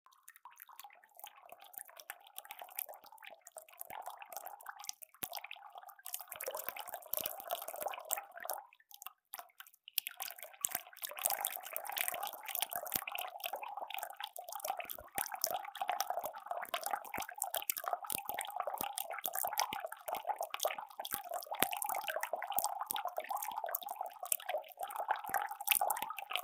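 Water running and dripping, a dense patter of small drops and splashes. It breaks off briefly about nine seconds in, then carries on.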